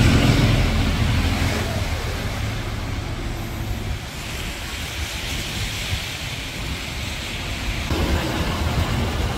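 Amtrak Superliner bilevel passenger train rolling past: a steady rush of wheels on rail, with wind buffeting the microphone. A heavier low rumble in the first couple of seconds fades away.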